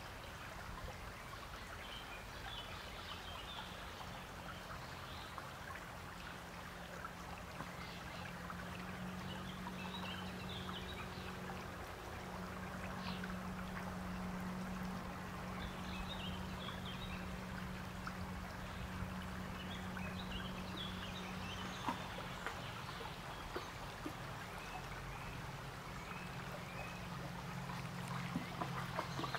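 A small forest brook flowing and trickling steadily, with faint high chirps now and then.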